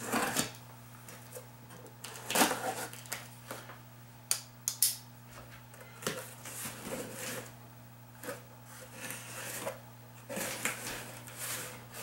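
A cardboard shipping box being handled and opened, with packing paper rustling and scraping in irregular bursts and two sharp taps about four to five seconds in.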